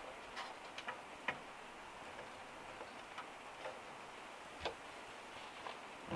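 Pieces of kindling wood clicking and knocking against a small metal wood stove as they are set into its firebox: sparse, irregular light taps, with a louder knock at the end.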